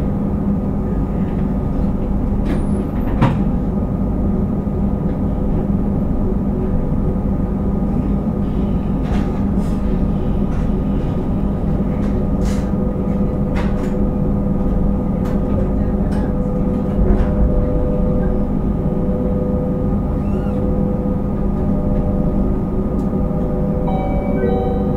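Abukuma Express 8100 series AC electric train standing still, its onboard electrical equipment giving a steady hum with several held tones over a low rumble. A few short clicks and knocks come through, and just before the end a chime-like set of tones starts.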